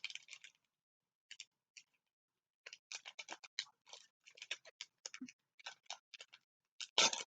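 Packaging being worked open by hand: a quick run of short crinkling, scratching noises, with a louder crackle near the end.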